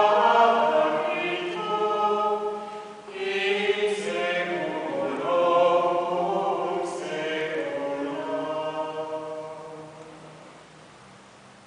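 Mixed ensemble of women's and men's voices singing Gregorian chant unaccompanied, in phrases. The singing fades out near the end.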